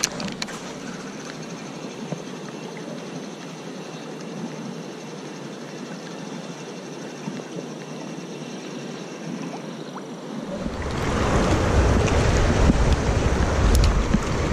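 Creek water flowing, quiet at first; about ten seconds in it turns much louder and fuller: water rushing over rocks in a shallow riffle.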